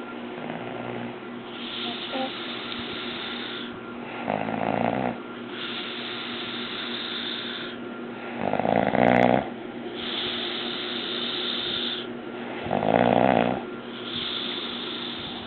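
A man snoring loudly in his sleep: three loud snores on the in-breath, about four seconds apart, each followed by a long, breathy out-breath.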